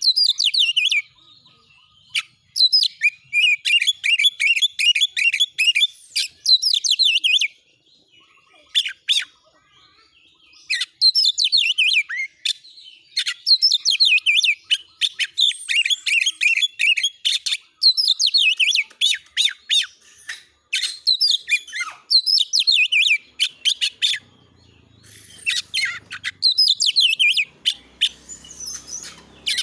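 Oriental magpie-robin (kacer) singing loud, rapid-fire song: bouts of quick repeated high notes lasting a few seconds each, with short pauses between them.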